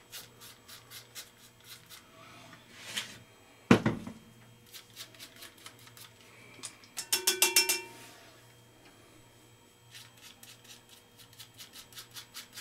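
Short, quick strokes of a Gillette Mach 3 three-blade cartridge razor scraping through stubble, several a second. A sharp knock comes about four seconds in, and a brief ringing clatter comes around the middle.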